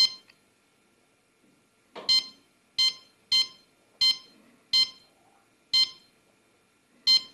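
CADD-Prizm infusion pump keypad: the up-arrow key pressed repeatedly, each press a click and a short electronic beep, eight in all at uneven intervals of about half a second to a second, as the reservoir volume is stepped up.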